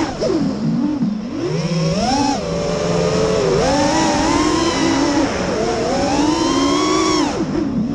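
Brushless motors and propellers of an FPV quadcopter whining close to the onboard camera, the pitch rising and falling with the throttle. The whine drops sharply just after the start and again near the end as the throttle is cut, then climbs back.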